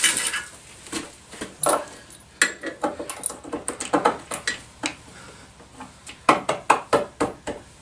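Metal bolts and hardware clinking and knocking as a bolt is picked up and fitted through a freshly drilled hole in a wooden stair tread, with a quick run of clicks near the end.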